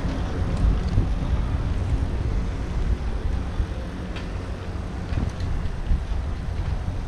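Wind buffeting the microphone of a camera riding on a moving bicycle, a steady low rumble that rises and falls, mixed with the rumble of the tyres on brick paving. A few faint clicks can be heard now and then.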